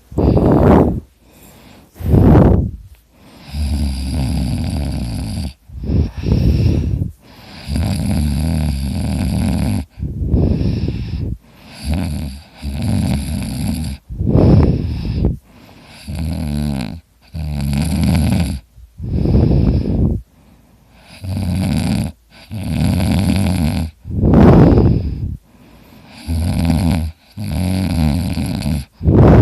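A person snoring loudly in sleep, one snore after another with short gaps between them. Each snore lasts one to two seconds; some are steady and buzzy, others swell to a sharp peak. The snoring sounds like a chainsaw.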